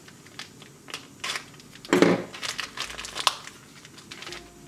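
Thin clear plastic wrapper of a ration napkin pack crinkling and tearing as the napkins are pulled out, in short irregular rustles with the loudest about two seconds in.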